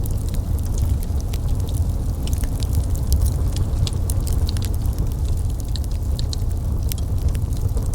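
Wood fire crackling in a fireplace: many small irregular pops and snaps over a steady low rumble of burning flames.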